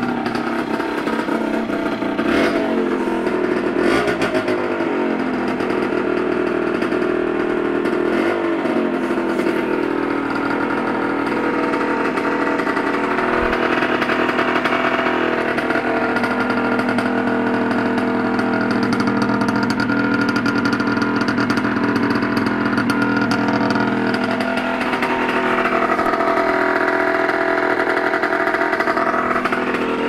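Yamaha DT50's single-cylinder two-stroke engine idling through its original stock exhaust, a steady buzzing run. Its pitch wavers briefly a few times in the first ten seconds.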